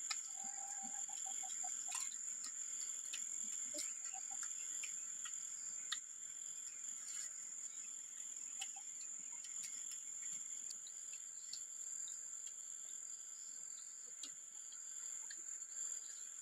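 Insects in forest undergrowth buzzing with one steady, high, even tone, with a few faint clicks over it.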